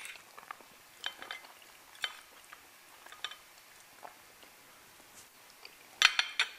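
Knives and forks clinking and scraping on plates during a meal: a few light clinks spread through, then a louder cluster of several quick knocks near the end.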